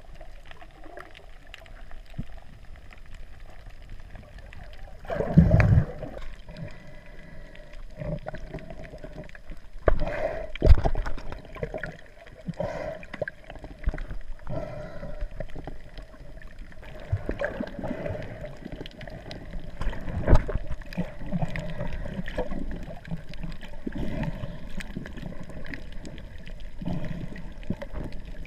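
Muffled water sloshing and gurgling heard through an underwater camera housing just below the surface, with a few louder surges, the strongest about five and ten seconds in.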